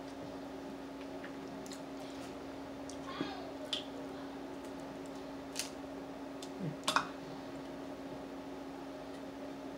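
Crab-leg and shrimp shells being picked apart by hand while eating: scattered small clicks and cracks, the loudest about seven seconds in, over a steady low hum.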